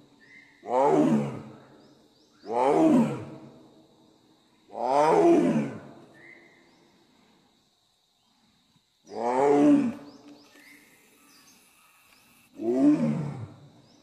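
Bengal tiger roaring: five separate roars of about a second each, the first three a couple of seconds apart, then a longer pause before the last two.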